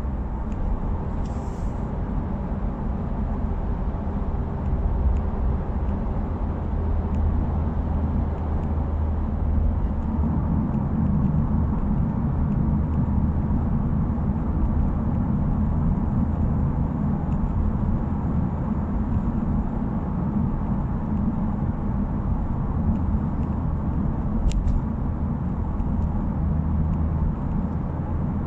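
Subaru WRX driving steadily in traffic: a continuous low engine and exhaust drone with road noise, which picks up slightly about a third of the way in. The muffler's abnormal noise has been fixed, and no rattle stands out.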